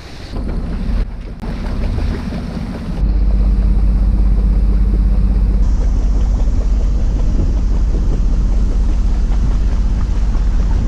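Strong wind buffeting the microphone on a sailboat underway, a heavy low rumble with waves washing by. It jumps abruptly louder about three seconds in and then holds steady.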